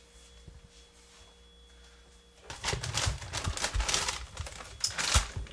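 Faint room hum, then from about halfway in, hands rummaging in an open chest freezer: plastic bags of frozen packages crinkling and knocking against each other and the wire basket, with the loudest knock near the end.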